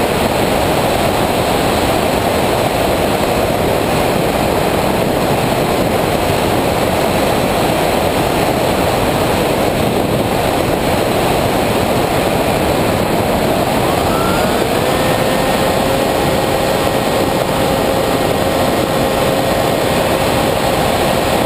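Wind rushing over the onboard camera of a Multiplex EasyStar II electric model plane in flight. About two-thirds of the way through, its electric motor and pusher propeller spin up with a rising whine that then holds at a steady pitch.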